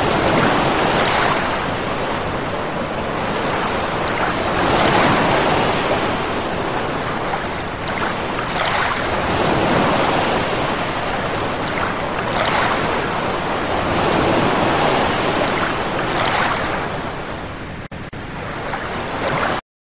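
Sea waves washing in, a dense rushing wash that swells and ebbs about every three to four seconds. It cuts off suddenly near the end.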